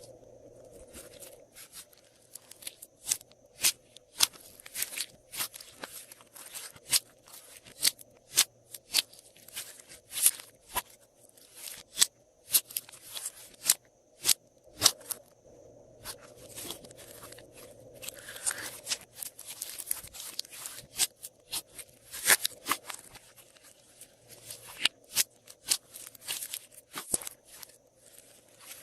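Glossy slime being kneaded and pressed by hand, with many irregular sharp, wet clicks and pops, several a second.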